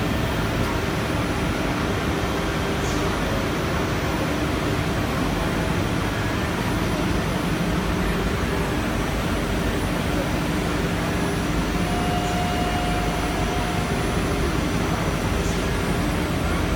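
Steady drone of a PTP CNC woodworking center and its shop machinery running, an even whooshing noise with faint steady tones and a brief higher whine near the end.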